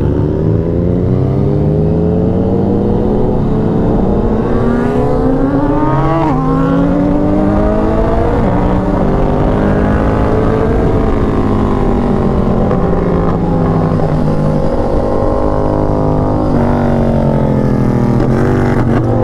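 Ducati Panigale V4 with an aftermarket SBK Performance exhaust pulling hard: the revs climb for several seconds, drop sharply at a gear change about six seconds in, climb again, then ease off and hold steadier toward the end. Loud, with a full exhaust note.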